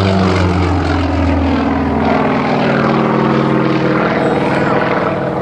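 Piston engine and propeller of an aerobatic display plane running hard as it climbs under smoke, a droning note that drops in pitch over the first two seconds, then holds steady.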